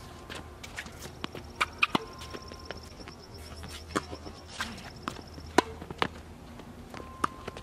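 Tennis rally on an outdoor hard court: sharp pops of the racket strings striking the ball, trading back and forth, with ball bounces and quick footsteps in between.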